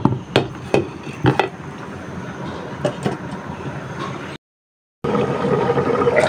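A glass pot lid clinking and knocking as it is handled and set onto a metal frying pan of simmering fish curry, about seven sharp clicks in the first three seconds over a steady hiss. The sound drops out completely for about half a second just past four seconds in, then the steady hiss returns, louder.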